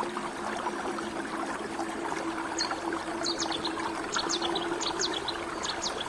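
Shallow spring-fed stream flowing over mossy rocks: a steady, dense trickling and babbling of small splashes. Short, high, quickly falling chirps join in from about halfway through.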